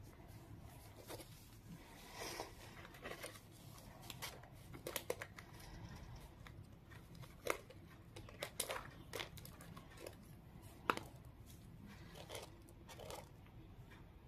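Paper crinkling and rustling with a rubber glove as small paper craft pieces are handled, broken by irregular sharp clicks and taps, the loudest about seven and eleven seconds in.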